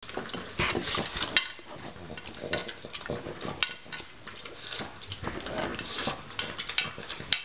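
A pug eating noisily from a metal food bowl: an irregular run of clinks, clatters and sharp knocks as its muzzle and the food hit the bowl.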